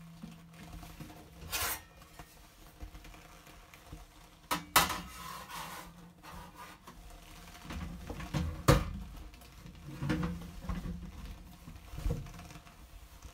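Knocks and light metallic clatter of a rack being handled inside the stainless-steel airlock compartment of an anaerobic chamber: a handful of separate sharp knocks, the loudest about two-thirds of the way through.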